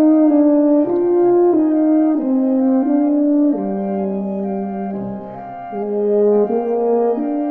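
Orchestral music: a solo tuba plays a slow melody of long held notes, stepping up and down in its high register, over sustained orchestral strings.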